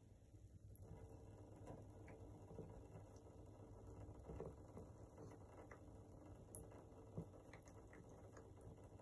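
Faint trickle of a thin stream of tap water running from a bathtub faucet into the tub, with a few soft clicks.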